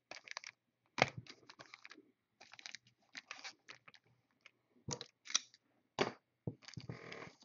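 Foil-wrapped trading card packs being handled and stacked on a tabletop: irregular crinkling and light clicks, with a longer rustle of foil near the end.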